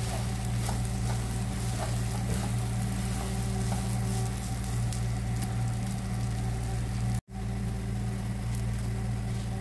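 Thick sticky-rice biko sizzling in a nonstick frying pan while a wooden spatula stirs and scrapes it, with a few small clicks early on, over a steady low hum. The sound cuts out for an instant about seven seconds in.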